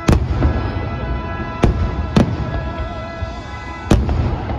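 Aerial fireworks shells bursting overhead: four sharp booms, the middle two close together, with music playing steadily underneath.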